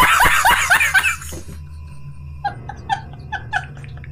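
A man laughing hysterically in rapid, loud bursts, each falling in pitch, fading out about a second in. After a short pause come quicker, quieter bursts of laughter at about four a second.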